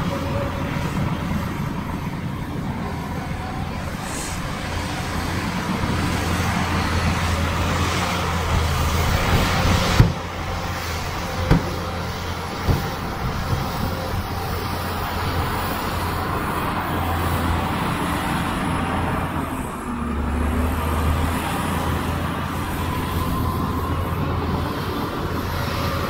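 Diesel engine of heavy earthmoving machinery running steadily under load, with a sharp knock about ten seconds in and two more over the next three seconds.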